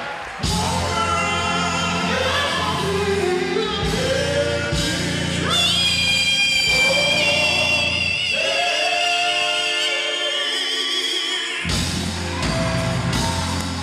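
Live gospel music: a vocal group singing with a band of bass and drums. Around eight seconds in, the bass and drums drop out for about three seconds, leaving the voices alone, then come back in.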